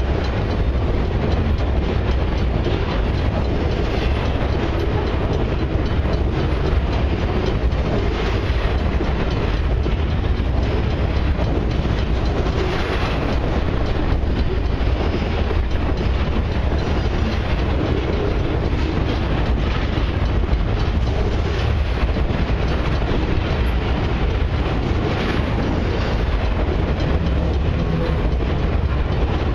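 Intermodal freight train's trailer-carrying flatcars rolling past at close range: a steady, unbroken rumble of steel wheels on the rails.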